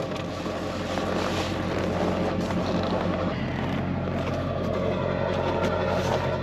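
An engine running steadily at constant speed: a low, even hum with no revving.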